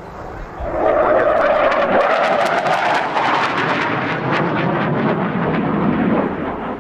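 General Dynamics F-111's twin Pratt & Whitney TF30 afterburning turbofans in a fast pass overhead. The loud jet rush builds about a second in, carries a rapid crackle through the middle, and fades near the end.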